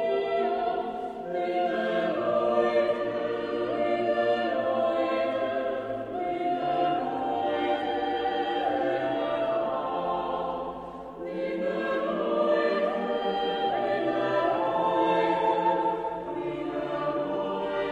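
Mixed chamber choir singing a traditional Algarvian Christmas carol a cappella, holding sustained notes in close harmony. The phrases break briefly about a second, six seconds and eleven seconds in.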